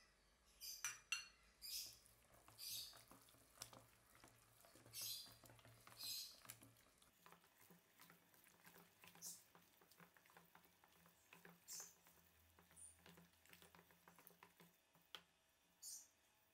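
Chopsticks stirring sticky minced-chicken siomai filling in a stainless steel bowl: faint, irregular clicks and brief wet scrapes as the sticks work the mixture and knock the metal, busiest in the first half.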